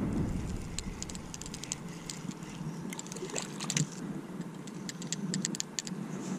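Spinning reel being cranked in quick runs of clicks as a small yellow perch is reeled to the boat, with light splashing as the fish reaches the surface.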